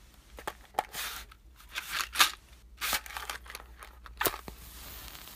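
A match struck against a matchbox several times in short rasping scrapes, followed by a steadier hiss near the end.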